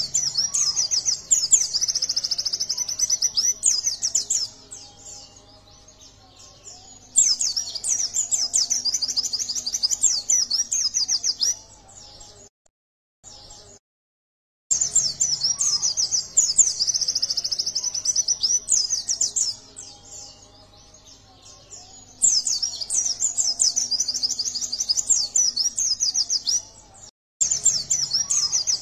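Yellow-breasted white-eye (pleci) singing a fast, high-pitched twittering song in bouts of about four to five seconds, with short pauses between them.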